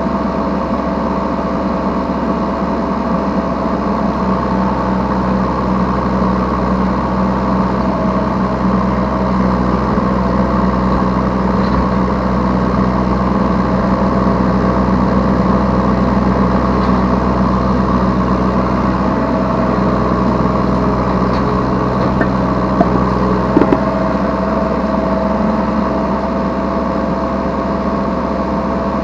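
Yanmar B3Σ 3-tonne mini excavator's diesel engine running steadily, heard from the operator's seat, its tone shifting a few times as the machine works. A couple of short knocks sound a little over two thirds of the way in.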